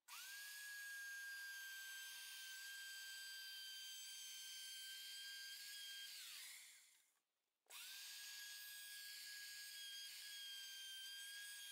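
Handheld router with a flush-trim bit: its motor spins up to a steady, faint high whine, winds down about six seconds in, then spins up again after a brief silence and runs steadily.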